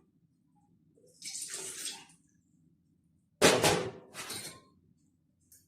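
Liquid poured into a bowl in three short pours, the second starting suddenly and loudest.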